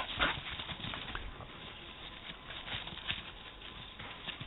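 Dogs moving about on dry grass and fallen leaves: irregular rustling and crackling, with a sharp knock right at the start.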